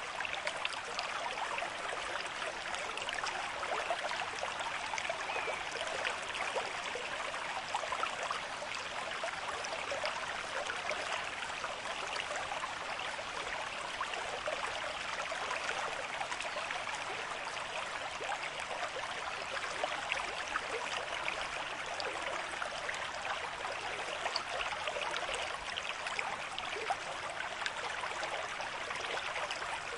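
River stream flowing at a moderate rate over stones, a steady babbling rush of water with fine splashing detail.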